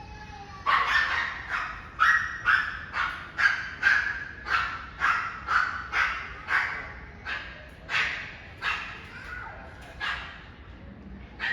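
A dog barking over and over, about two barks a second, starting just under a second in; the barks grow fainter toward the end.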